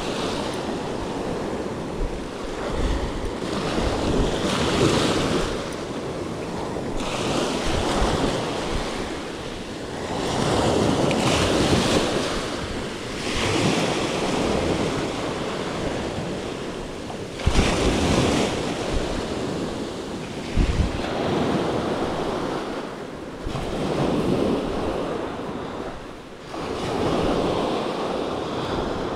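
Small waves breaking and washing up a sandy beach, the surf swelling and ebbing every few seconds. Wind buffets the microphone, with a couple of sharper low gusts about two-thirds of the way in.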